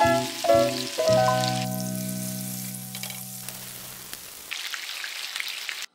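Marinated chicken quarters sizzling in a little oil in a nonstick grill pan. Over the first seconds a few notes of background music end on a long chord that fades out about four seconds in, leaving the steady sizzle alone.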